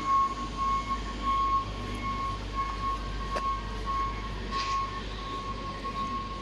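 Electronic reversing-alarm beeping from a work vehicle: one steady high tone, broken into beeps about twice a second, over a low rumble. A single sharp click comes about halfway through.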